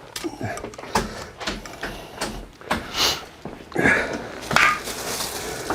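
Irregular clicks and knocks with a few short rustles, the sound of moving about and handling things.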